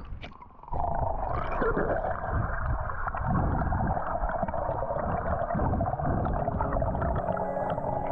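Swimming underwater heard through a submerged microphone: a muffled, steady rush of water and bubbles that starts suddenly about a second in.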